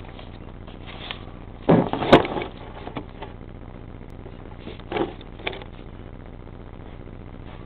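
Handling noise from a camera being picked up, set down and adjusted on a table. There is a loud cluster of knocks with a sharp click about two seconds in, then two softer knocks around five seconds, over a steady low hiss.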